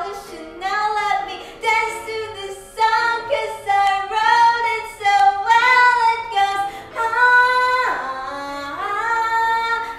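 A girl singing a musical-theatre song in a strong, bright voice, holding long notes, with a quick swoop down in pitch and back up about eight seconds in.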